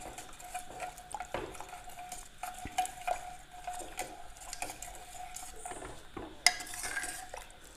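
Metal spoon stirring a thick mutton and onion curry in a pressure cooker, with repeated scrapes and clicks of the spoon against the pot; the sharpest click comes about six and a half seconds in.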